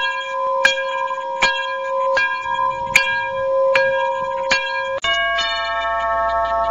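Music: a held tone with struck notes landing at a steady pace, about every three-quarters of a second. About five seconds in it cuts to a different sustained chord over a low hum.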